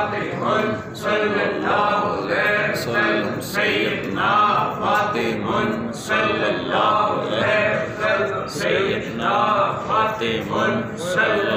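Men's voices chanting a devotional dhikr together, phrase after phrase in a steady, repeating rhythm.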